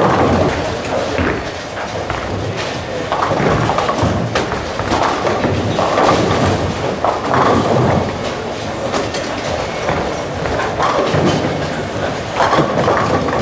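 Bowling alley din: balls rolling down the wooden lanes with a low rumble and pins crashing sharply now and then on several lanes, under background chatter.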